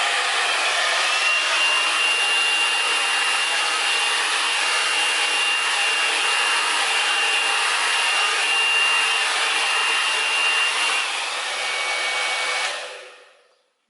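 Hair dryer running steadily, blowing wet acrylic paint across a canvas in the blowing stage of a Dutch pour. A thin high whine sits over the rush of air and drops a little in pitch near the end. The noise fades out about a second before the end.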